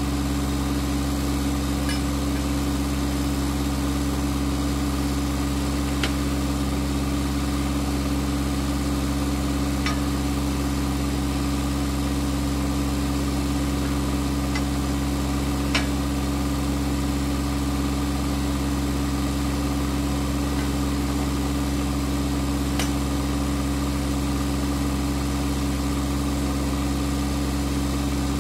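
Engine idling, a low hum that holds one speed without revving, with a few faint clicks scattered through.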